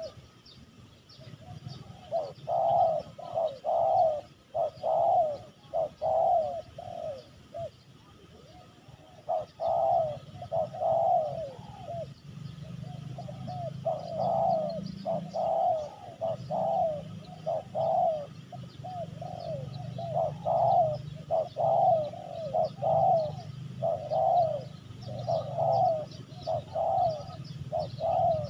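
Spotted doves cooing in repeated phrases of several soft coos each, the calls coming close after one another with a short pause partway through.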